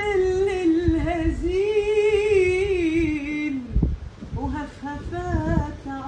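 A woman singing a sad Gulf Arabic song unaccompanied. She holds one long, wavering note that slides down near the middle, then sings a few shorter, lower phrases.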